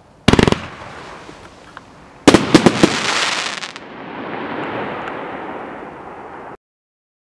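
Dominator Ghost Mine 500-gram fan cake firing: a loud short volley about a third of a second in, then a quick string of sharp reports about two seconds later. A long crackling hiss of burning stars follows and cuts off suddenly near the end.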